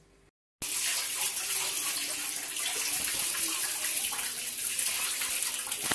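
Water pouring steadily into an aluminium pot on the stove, starting abruptly about half a second in.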